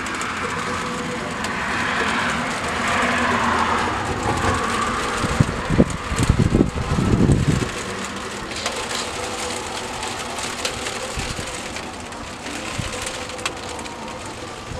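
A car passing on a wet road, its tyres hissing as the sound swells and fades over the first few seconds. Wind then buffets the microphone in short gusts about six to seven seconds in.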